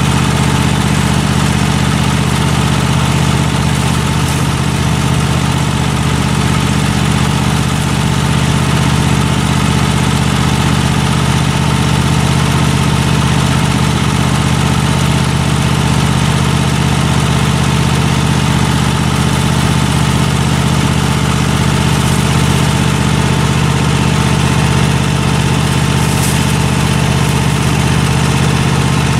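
LT46 riding lawn mower engine idling steadily.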